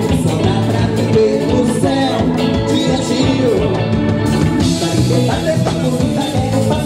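Live amplified carnival band music: a Bahian band playing with a steady beat and singing.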